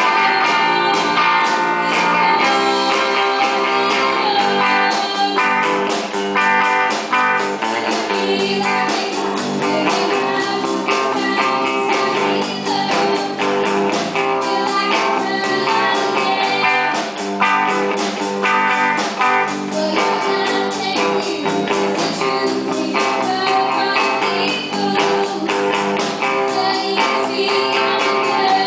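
A live band playing a song: electric and acoustic guitars strummed over a drum kit, with a girl singing lead.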